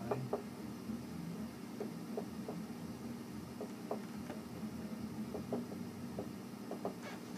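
Dry-erase marker writing on a whiteboard: irregular light ticks and taps of the pen strokes over a steady low room hum.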